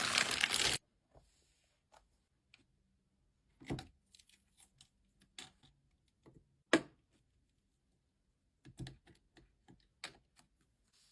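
A brief loud rush of noise at the very start, then scattered light clicks and knocks of small hard parts being handled, with two sharper knocks about four and seven seconds in.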